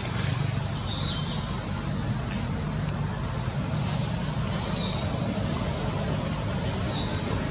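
Steady low outdoor rumble like distant road traffic, with a few short high chirps scattered through it.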